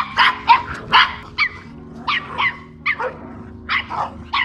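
A dog barking in short, quick barks, about three a second, over steady background music.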